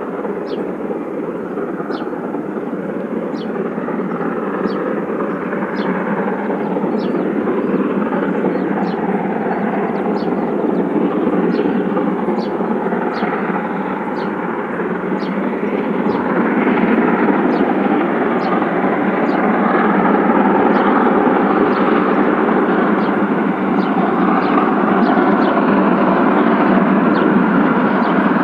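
Steam locomotive working hard under load. Its exhaust blends at a distance into a steady heavy roar that grows louder as the train comes on.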